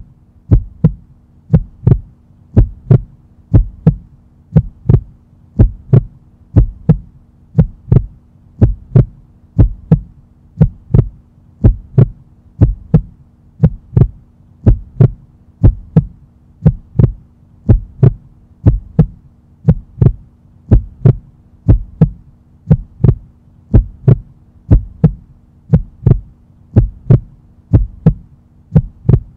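Steady heartbeat-like double thump, repeating about once a second over a low steady hum.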